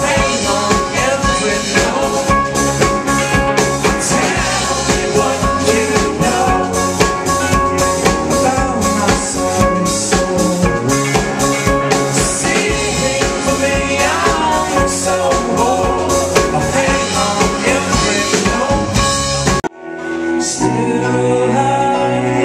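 Live rock band playing an instrumental passage with a steady drum-kit beat under electric guitars, bass and sustained notes. About twenty seconds in the sound cuts abruptly to a different song led by a banjo.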